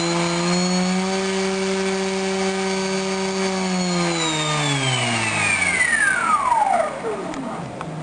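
Small brushless RC motor spinning an 8x4 propeller, whining steadily at a current draw just under 3 amps, then winding down in pitch after about four seconds as the throttle is cut. A few light clicks follow near the end.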